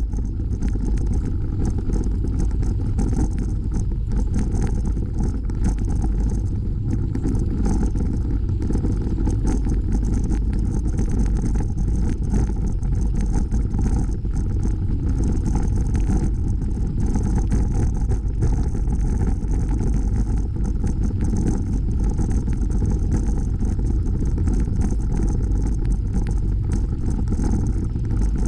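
Steady low rumble of a bicycle ride heard from a camera on the moving bike: wind rushing over the microphone and the tyres rolling on the asphalt trail.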